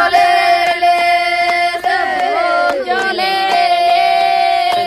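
A group of Wodaabe women singing together, holding long high notes with some voices sliding down in pitch, and a few short sharp strokes underneath.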